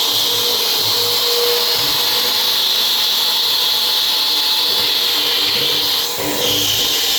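A power tool running steadily with a high hiss, easing briefly about six seconds in.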